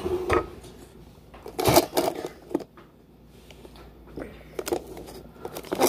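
Scattered knocks, clicks and rustles of small objects being handled, the loudest knock about two seconds in.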